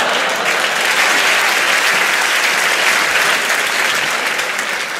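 Live stand-up comedy audience applauding after the closing punchline, a steady clapping that eases slightly near the end.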